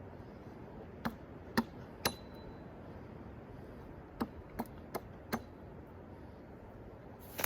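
A series of sharp knocks or strikes: three about one to two seconds in, four more around four to five seconds in, and a louder one right at the end. One of them leaves a brief ringing tone.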